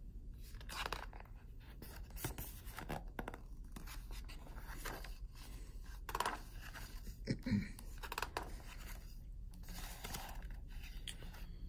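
Pages of a large hardcover picture book being opened and turned by hand: a string of soft paper rustles and scrapes, a few of them louder as a page is lifted and laid flat.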